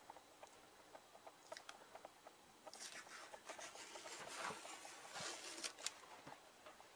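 Faint rustling and rubbing of tape being peeled and smoothed on a self-adhesive tank knee pad: a few soft ticks, then from about three seconds in a stretch of scratchy rustling with small clicks.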